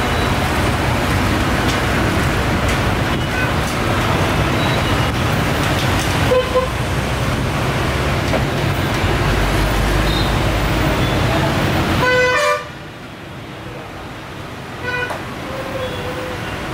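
Steady street traffic noise with car horns tooting. The dense rumble drops off abruptly about twelve seconds in, with a horn sounding just as it drops and another about three seconds later.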